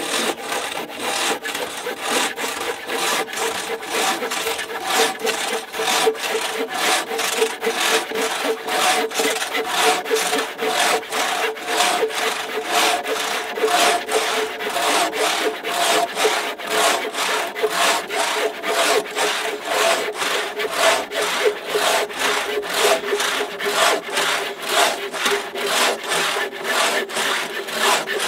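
A buck saw and a long curved Japanese Silky saw cutting one 8-inch log at the same time: fast, overlapping back-and-forth strokes of saw teeth through wood, with a steady ring under the strokes.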